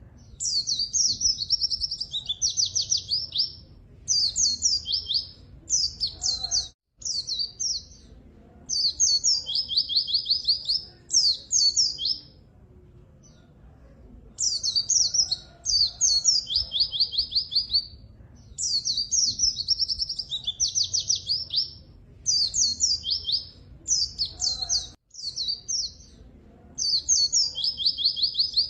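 White-eye (pleci) singing continuously in rapid, high twittering phrases with quick trills, each burst a second or two long, with short pauses between. There is one longer pause of about two seconds near the middle.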